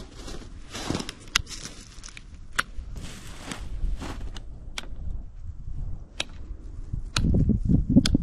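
Winter pruning of a young Hachiya persimmon tree by hand: footsteps in snow and rustling of branches, with several sharp clicks. About seven seconds in, a louder rough back-and-forth rasp starts as a branch is cut.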